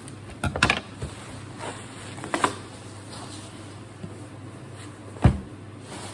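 Handling of a tightly wrapped parcel being unboxed: a cluster of sharp knocks and crackles about half a second in, another knock a couple of seconds later, and one loud thump near the end, over a steady low hum.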